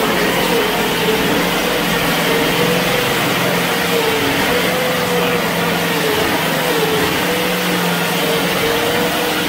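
Small engine of a homemade tracked vehicle running steadily as the vehicle creeps forward. The drone wavers slightly in pitch.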